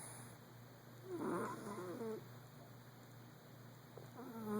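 Persian cat snoring in its sleep: two snoring breaths about three seconds apart, each a wavering, pitched rasp, the second starting near the end.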